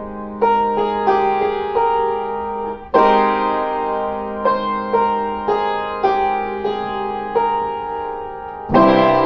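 Instrumental music: a slow melody of single notes, struck or plucked about once a second, each ringing on and fading, over a held low note. A louder note comes near the end.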